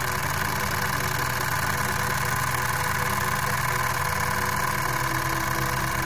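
Miniature model steam engine running fast on compressed air instead of steam: a rapid, even chuffing from the little cylinder over a continuous hiss of air.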